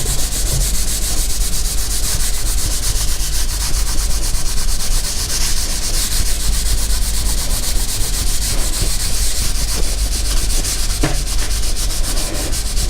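Damp Greenway Aqua Magic Absolute cleaning cloth scrubbing greasy ceramic wall tiles, a steady loud rubbing that carries on without a break.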